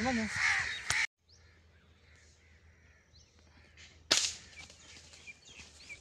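Crows cawing in rapid repeated calls, cut off abruptly about a second in. Then faint bird chirps, and a single sharp crack of an air rifle shot about four seconds in, the loudest sound, dying away quickly.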